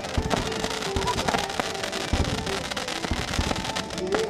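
Fireworks display: aerial shells bursting in a rapid, irregular run of bangs and crackles.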